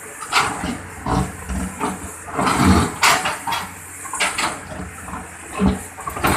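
Excavator digging into a wet riverbank: irregular scraping and knocking of the bucket against soil.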